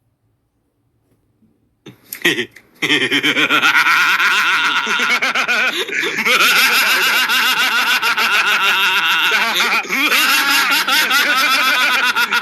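A loud meme sound effect played from a soundboard app: a dense, warbling pitched sound that starts about two seconds in and runs for around ten seconds before cutting off, with a short burst near the end.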